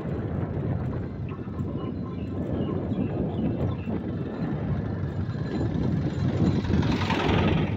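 Rough wind buffeting on the microphone mixed with road and engine noise from a moving vehicle carrying the camera. Near the end a small motorised three-wheeled cargo van passing close adds its engine, and the noise grows louder and brighter.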